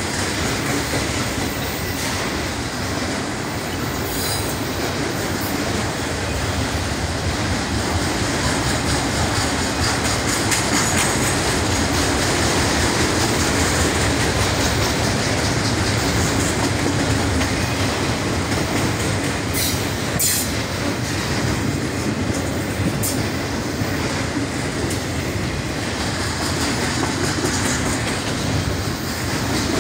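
Freight train of autorack cars rolling steadily past on steel wheels and rails, a continuous loud rumble and rattle with a few sharper clicks a little past the middle.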